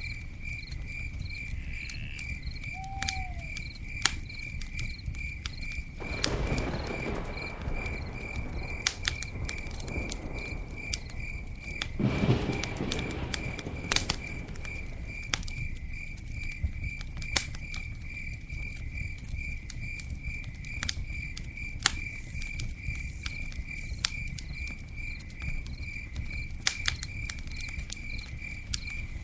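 Campfire crackling with scattered sharp pops, over a cricket chirping steadily at a high pitch, about two or three chirps a second. Two short rushes of noise rise and fall about 6 and 12 seconds in.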